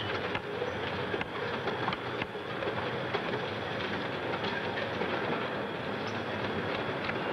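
Steady din of factory assembly-line machinery and conveyors, with scattered clicks and knocks throughout.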